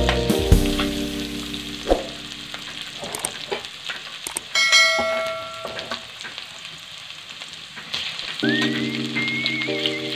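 Onions, garlic and ginger sizzling in oil in a steel wok while being stirred. A short chime sounds about halfway through. Background music plays at the start and comes back near the end.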